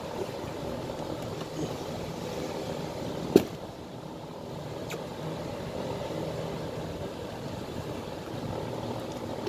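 A steel rod worked against a leather safety boot: a few faint taps and one sharp knock about three and a half seconds in, over a steady background hum.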